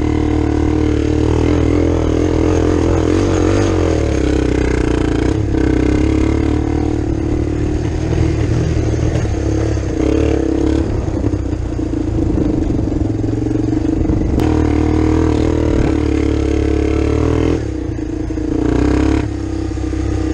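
Kawasaki Bayou 185 ATV's single-cylinder four-stroke engine running under throttle while riding, steady for most of the time, the engine note easing off twice near the end before picking up again.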